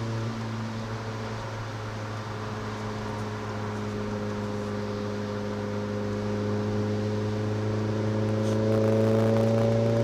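Renault Clio RS 200's four-cylinder engine heard from inside the cabin, holding steady revs at first, then revs climbing slowly through the second half as the car accelerates, over a steady hiss of road noise.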